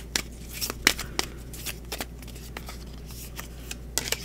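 Tarot cards being shuffled by hand: a quick, irregular run of soft card flicks and snaps.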